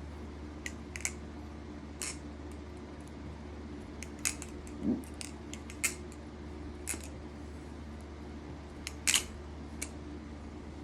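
Rebola balisong (butterfly knife) being flipped: the metal handles and pivots give scattered sharp clicks and taps, about nine over ten seconds, at an uneven pace.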